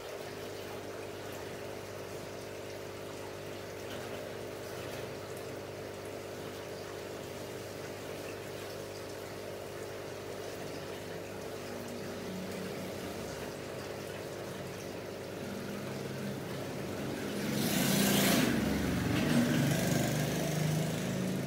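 Aquarium filter pump humming steadily with a faint trickle of water. A louder rumbling swell rises near the end.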